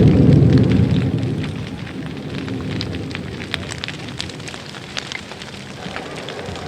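Music with organ fades out over the first two seconds, leaving a low crackling hiss with scattered faint clicks.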